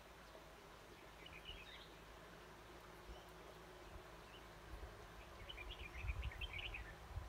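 Faint red-whiskered bulbul calls: a short burst of quick chirping notes about a second in, then a longer run of chirps near the end. Low rumbling thumps come with the second run.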